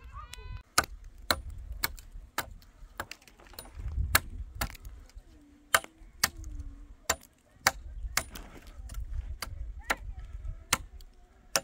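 Hammer blows striking again and again, sharp knocks about two a second with a few short pauses.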